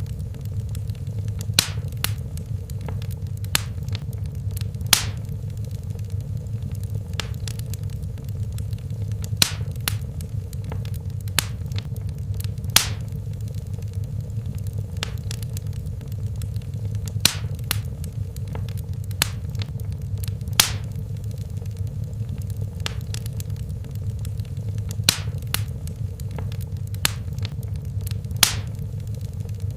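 Wood fire in a fireplace burning with a steady low rumble, broken by sharp crackles and pops at irregular moments, one every second or few seconds.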